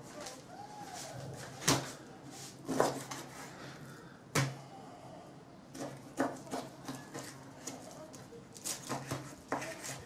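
Kitchen knife cutting pork belly into pieces, with a series of sharp, irregular knocks of the blade against a cutting board.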